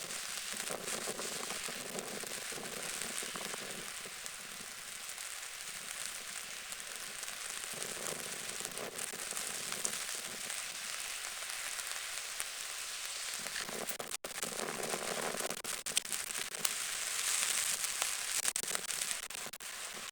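Steady patter of rain falling on a lake, many small drops crackling, a little louder near the end.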